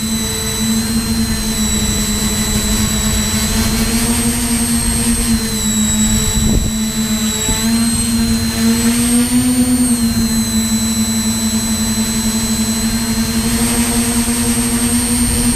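Tricopter's electric motors and propellers running in flight, heard from the camera on board: a steady hum with a high whine above it, the pitch rising and falling a little as the throttle changes, over a low rumble.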